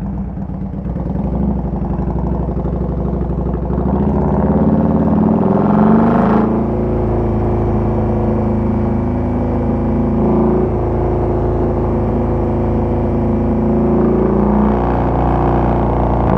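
Harley-Davidson Softail Deluxe's Twin Cam 88B V-twin engine under way: it pulls up through the revs, rising in pitch for a couple of seconds, changes gear about six seconds in, then runs steadily at cruising speed.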